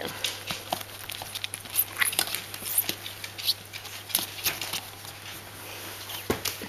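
Irregular scratchy rustles and sharp clicks of a hand rubbing and playing with a Bichon Frisé puppy on a fleece mat, the puppy's fur and claws close to the microphone.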